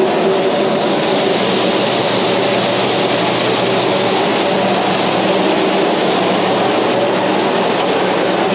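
Farm tractor engine running steadily, a constant pitched hum under an even mechanical noise.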